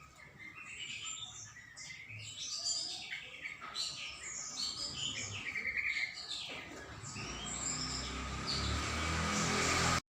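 Caged songbird singing a long run of quick, varied high chirps and whistled glides. From about seven seconds in, a rising rushing noise with a low rumble builds under the song and then cuts off abruptly.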